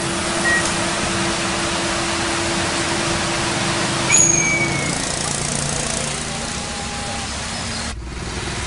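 Komatsu PC200-8 crawler excavator travelling on asphalt: its six-cylinder diesel running steadily under the clatter of steel tracks on the road. A brief high squeal about four seconds in, and the steady engine note falls away about a second later.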